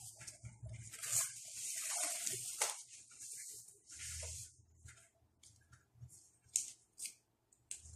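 Thin spring roll (lumpia) wrappers rustling as they are peeled apart and handled: a dense rustle for the first few seconds, then scattered short scrapes and crinkles.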